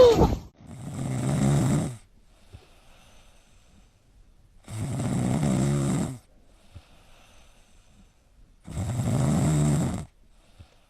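A dog snoring: three long snores about four seconds apart.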